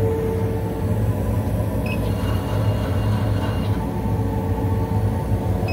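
Laser cutter running as it cuts fabric: a steady low machine hum, with a faint high whine for a second or so in the middle.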